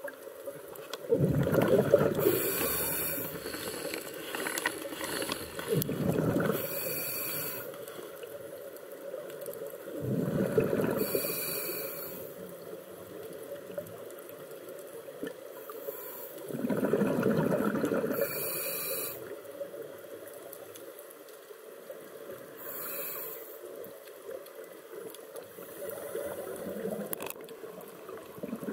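Scuba diver breathing through a regulator underwater: a hiss on each inhale and a bubbling rush of exhaled air, repeating about every four to five seconds, some six breaths in all.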